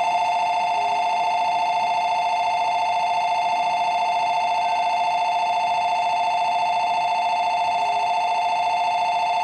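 Station platform departure bell ringing: a loud, continuous electronic ring that starts abruptly and holds steady, the signal that the train's doors are about to close.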